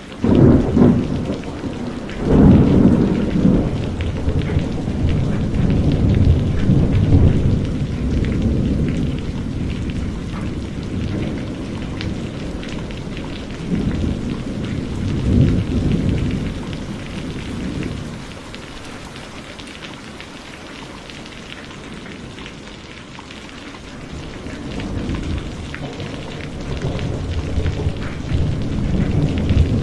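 Heavy rain falling steadily, with thunder rumbling again and again underneath. The rumbles ease off into a lull past the middle and build up again near the end.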